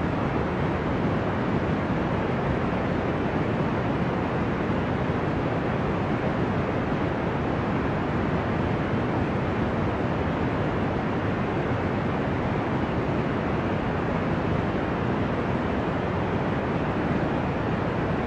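Steady, deep rushing noise, an ocean-like sleep noise, muffled and even with no rise and fall of breaking waves.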